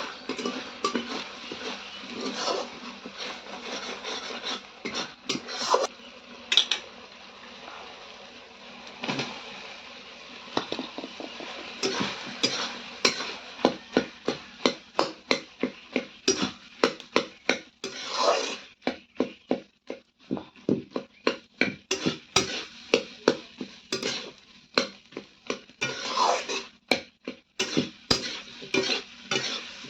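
Metal kitchen utensils clinking and knocking against a cooking pot, becoming a quick, fairly regular series of sharp clicks about two to three a second through the second half.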